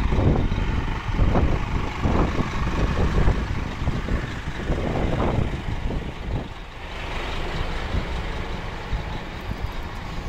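Scania K320UA articulated bus's rear-mounted five-cylinder diesel idling at a stop, a steady low rumble. There are irregular louder low rumbles over the first six seconds, then it settles.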